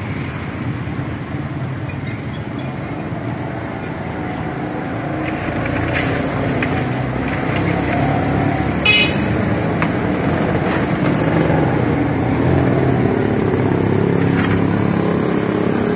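Street traffic running steadily: motorcycle and car engines passing. There is a brief high-pitched horn toot about nine seconds in, and a few light clicks.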